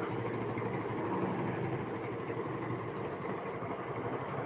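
A steady mechanical hum runs in the background, with a few faint clicks.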